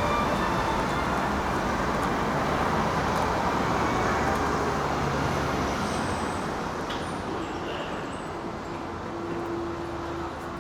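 City street traffic noise: a steady wash of passing vehicles, slowly fading toward the end.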